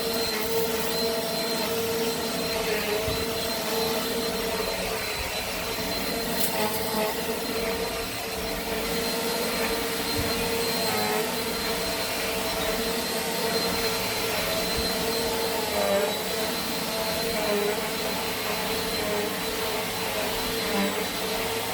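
Eureka AirSpeed Plus (NEU110) compact upright vacuum cleaner running steadily while it is pushed over carpet, its motor giving a constant whine.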